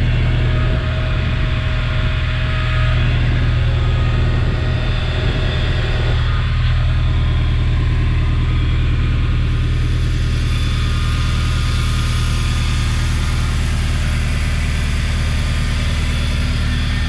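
1999 Toyota Surf's 16-valve four-cylinder petrol engine idling steadily, heard up close with the hood open.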